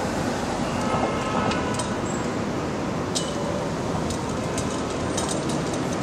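Steady rumble of heavy street traffic, with several sharp metallic clinks and rattles in the second half.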